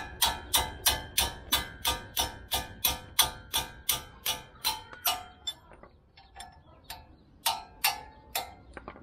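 Hand hammer striking repeatedly, about three blows a second, each with a short ringing note. About halfway through the blows slow and thin out, with a few more near the end.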